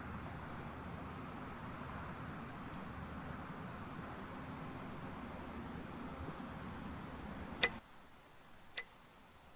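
Crickets chirping steadily in a quiet outdoor background, then two sharp clicks about a second apart near the end, the first the louder.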